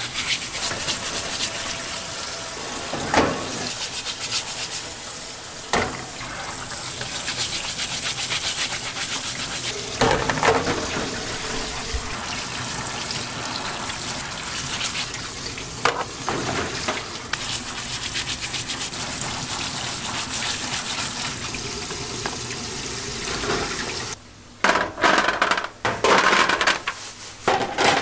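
Water spraying from a sink sprayer over red scallop shells while they are scrubbed with a brush, with a few knocks of shell. Near the end the water stops and hard clams clatter against a stainless-steel tray.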